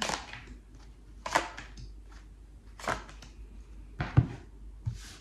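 Tarot cards being flipped face-up and set down on a table one by one, a short sharp snap or tap each time, about five over a few seconds.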